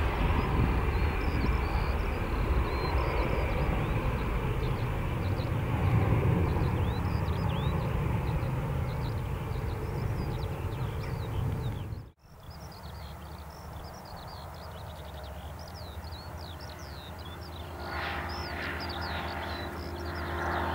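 Jet engine noise from a Bombardier CRJ regional jet's two rear-mounted turbofans as it climbs away after takeoff, loud and slowly easing off. About twelve seconds in it cuts to a quieter scene with birds chirping, and near the end the engine noise of a Boeing 737-800 moving along the runway grows louder.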